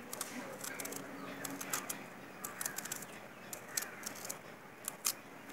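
Small kitchen knife slicing through a red onion held in the hand, a scattered run of short, crisp clicks as the blade cuts, with birds calling faintly in the background.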